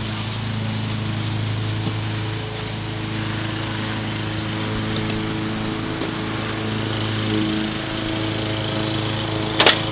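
A small engine or motor runs steadily with an even hum, and there is a single sharp click near the end.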